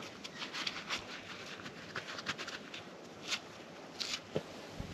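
Scattered light clicks and rustles of gloved hands handling the metal engine cover of a yellow earthmoving machine. The two sharpest clicks come about three and four seconds in.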